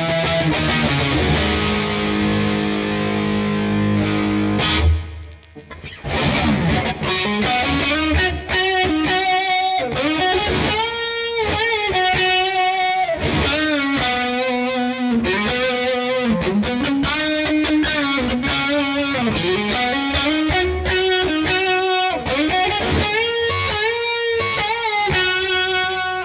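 Electric guitar played through distortion on a Gibson SG Standard fitted with a Seymour Duncan Phat Cat, a P-90-style neck pickup. A held chord rings for about five seconds and cuts off. After a brief gap, a fast lead line follows, full of string bends and vibrato.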